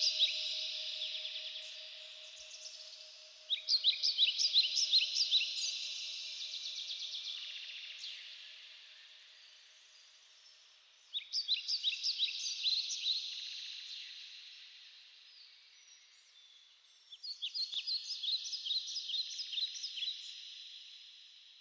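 Bird song: a high, rapid trill of chirps, about eight notes a second, heard three times about every seven seconds. Each phrase fades out slowly.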